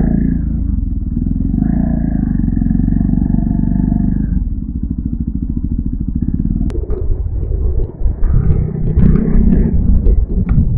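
Motorcycle engine running under the rider. About four seconds in it drops to a low, even putter, and scattered clicks and knocks come in over the second half.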